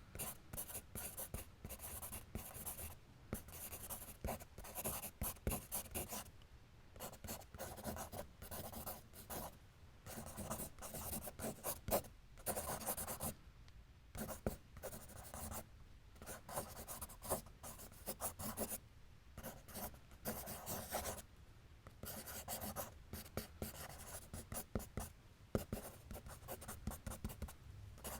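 Pencil writing and drawing on paper: quick scratchy strokes in irregular runs, broken by brief pauses every few seconds.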